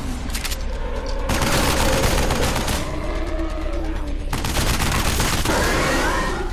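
Automatic rifle fire in two long rapid bursts, one starting about a second in and another past the four-second mark.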